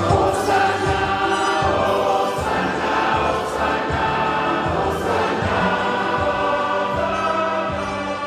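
Choir singing a hymn in several voices over a steady low beat.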